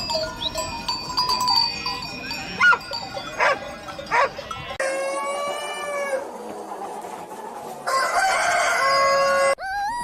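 Rooster crowing, with chickens clucking, in several short recordings that cut abruptly from one to the next.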